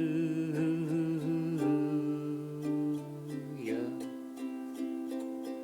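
Ukulele strummed in a steady rhythm between sung lines. For the first three and a half seconds or so, a low voice holds a note under the chords.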